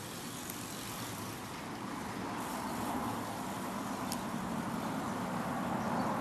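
Road traffic: a motor vehicle going by, its noise growing gradually louder, with a couple of faint clicks.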